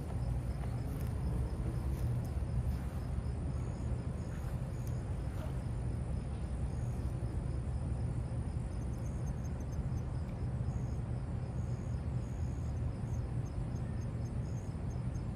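Outdoor background: a steady low rumble, with faint high insect chirps repeating through the second half.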